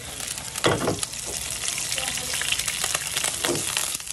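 Chunks of beef fat sizzling and crackling in hot cooking oil in a wok, the fat starting to render. There are two brief louder noises, the louder about a second in and the other near the end.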